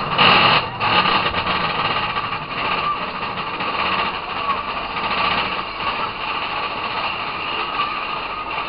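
Big Thunder Mountain mine-train roller coaster running along its track, a steady rumble and rattle of wheels on rail with a louder rush in the first second.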